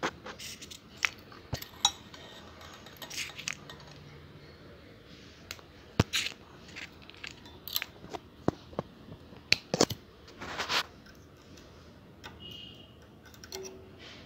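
Irregular small metallic clicks and taps from steel tweezers knocking against the needles, needle bar and presser foot of a flatlock sewing machine while its needles are threaded by hand. A short rustle of thread being pulled comes about three-quarters of the way through.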